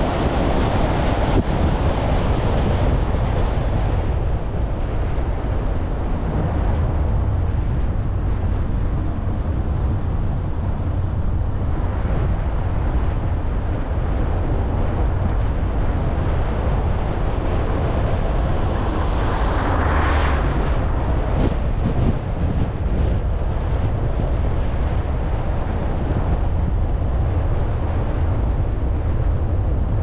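Steady rumble of a car driving, with wind buffeting the microphone. About twenty seconds in, the noise swells briefly and falls away again.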